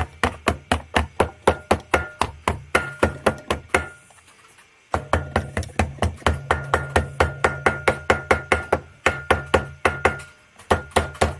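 A hammer tapping quickly and lightly on gasket paper laid over a metal water pump flange, at about five taps a second, pausing for about a second near the middle and briefly near the end. The tapping presses the paper against the flange edges so that it marks out and pre-cuts the new water pump gasket.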